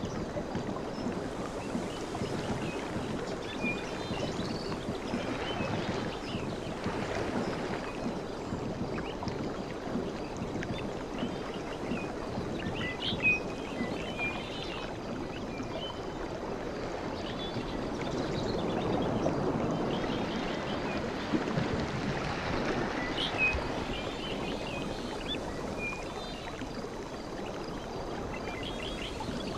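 Sea waves washing on a beach: a continuous surf hiss that swells twice as waves come in, with a few faint short high-pitched sounds on top.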